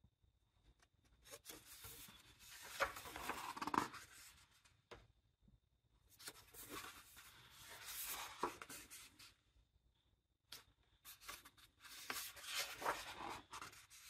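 Pages of a large hardcover art book being turned by hand, three times: each turn a paper rustle and swish lasting two to three seconds, with short pauses between.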